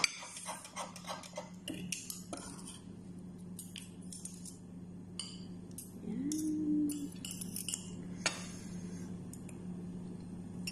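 Metal spoon and fork clinking and scraping on a plate while serving diced vegetable salad, in scattered taps. A short tone rises and holds for about a second, about six seconds in, over a steady low hum.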